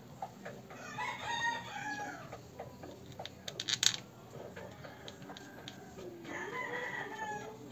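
A rooster crowing twice: one long call about a second in and another near the end. A quick run of sharp clicks midway is the loudest sound.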